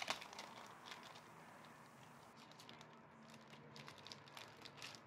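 Faint rustling and crinkling of a clear plastic sleeve and paper stickers being handled, with scattered soft clicks and taps, more of them in the second half.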